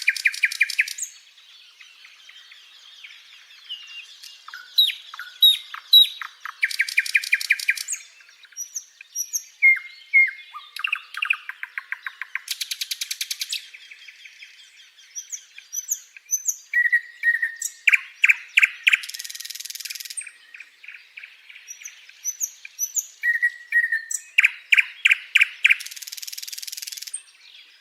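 Birds singing: repeated phrases of short chirps and fast trills, with a rapid buzzy run of notes every few seconds.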